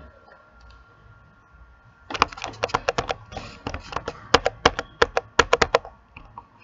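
Fast typing on a computer keyboard: a quick, irregular run of key clicks, about seven a second, starting about two seconds in and lasting nearly four seconds.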